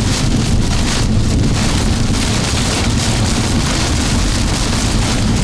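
Storm winds, with rain, pounding against a car, heard from inside the cabin as a loud, steady noise.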